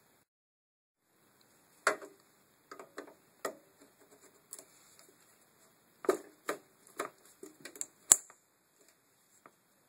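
Irregular plastic and metal clicks and knocks from a VW Passat B5 window regulator's rails and glass clips being handled and fitted on its metal door carrier panel. They start after a short silence, and the sharpest click comes about eight seconds in.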